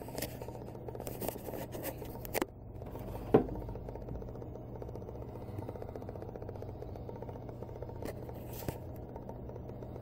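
Handling noise: brief scraping and rustling in the first couple of seconds, then a single sharp knock a little over three seconds in and two faint clicks near the end, over a steady low hum.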